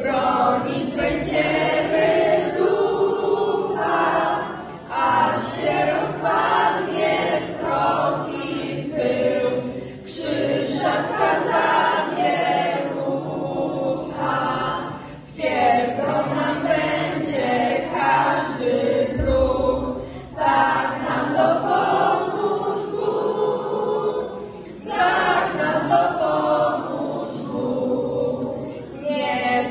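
A choir singing unaccompanied, in phrases of about five seconds with short breaks between them.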